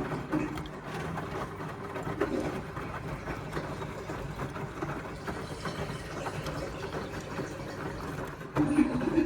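Indesit washing machine running mid-cycle: the drum motor turning the wet full load, with a steady churning and small knocks, swelling louder about two seconds in and again near the end.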